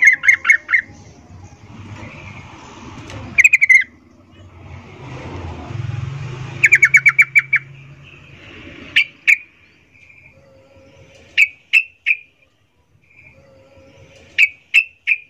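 Yellow-vented bulbul calling: quick chattering runs of short notes near the start, about three seconds in and about seven seconds in, then sharp single notes in twos and threes. It is offered as the female's breeding-season call used to lure males.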